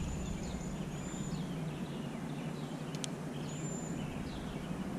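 Steady outdoor background noise with birds chirping: many short, high calls scattered throughout. A single sharp click comes about three seconds in.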